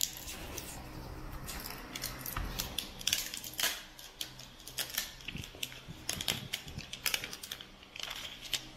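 A new smartphone in its plastic wrapping being handled: irregular small clicks, taps and crinkles of plastic against fingers and the phone.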